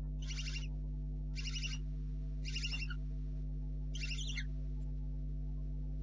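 Barn owl owlets giving four short, harsh hissing calls about a second apart; this hiss is the owlets' food-begging call. A steady electrical hum runs underneath.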